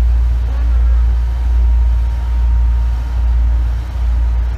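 Cabin running sound of an Izukyu 8000 series (ex-Tokyu 8000) electric train, recorded in motor car KuMoHa 8157 while the train runs between stations. A loud, heavy low rumble from the running gear swells and eases about every three-quarters of a second.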